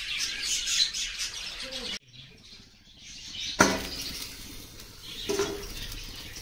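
Small birds chirping rapidly and busily. After a sudden cut, kitchen sounds follow, with one sharp clink about three and a half seconds in and a softer knock near the end.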